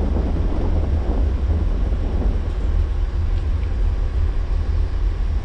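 Steady low rumble in the cockpit of an Airbus A340 as the airliner rolls along the runway, slowing after touchdown.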